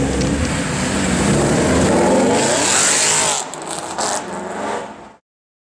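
Mercedes SLS AMG's 6.2-litre V8 with a Supersprint aftermarket exhaust, accelerating past loud. The engine note swells and falls away about three seconds in, leaving quieter traffic, and the sound cuts off suddenly near the end.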